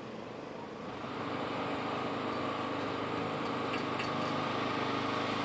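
Street construction-site sound: a steady engine hum over traffic noise that grows louder about a second in, with a couple of faint clicks late on.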